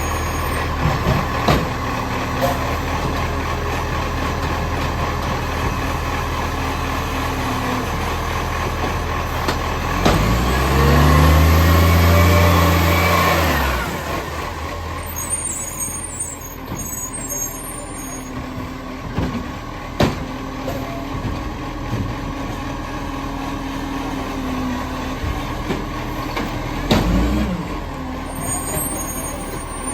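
Garbage truck's diesel engine running, with an exhaust leak. About ten seconds in it revs up and falls back over roughly four seconds, then settles to a steady run with a few sharp knocks.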